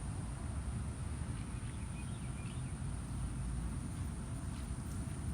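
Steady low outdoor background rumble, with a few faint bird chirps around the middle.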